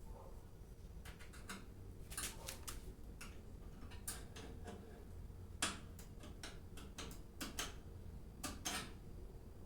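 Irregular light clicks and metallic taps of tools and parts being handled on a Brastemp microwave oven opened up for repair.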